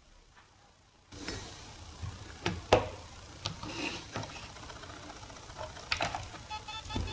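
Failed laptop hard drive powering up in an external enclosure: a few sharp clicks over a low hum, then near the end a rapid repeating beep as the drive cannot spin, which the owner takes for a stuck head.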